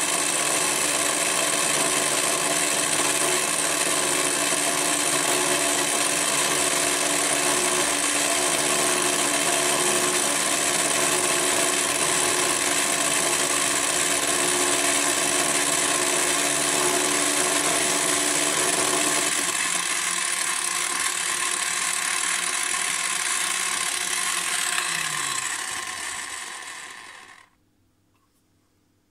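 Direct-drive pillar drill motor running at about 1200 RPM with an end mill cutting along the edge of a metal bar, a steady, slightly chattery milling cut. About two-thirds of the way in the cutting sound drops away while the motor keeps running; near the end the motor is switched off and winds down to silence.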